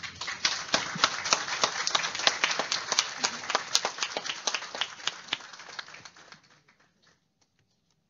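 Audience applauding, a room full of people clapping that gradually tapers off and stops about seven seconds in.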